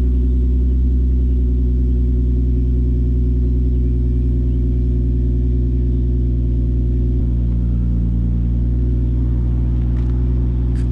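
Infiniti FX35's 3.5-litre V6 idling steadily shortly after a cold start, heard at the tailpipes through an aftermarket exhaust: DC Sports headers, Kinetix high-flow cats and an Invidia Gemini titanium-tip cat-back. A low, even idle note that holds level throughout.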